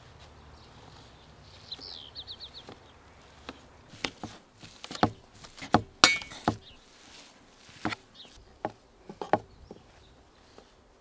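A metal utensil mashing cottage cheese in an enamel bowl: irregular soft knocks and clinks of metal against the enamel, the loudest, with a short ring, about six seconds in.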